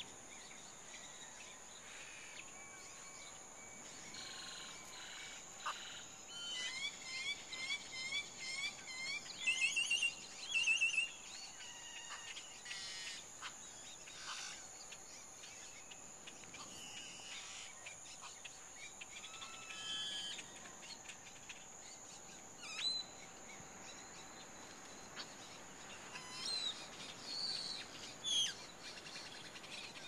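Wild birds singing and calling: a run of quick repeated chirps starts about six seconds in and is loudest around ten seconds, with scattered calls later on. A steady high-pitched drone runs underneath.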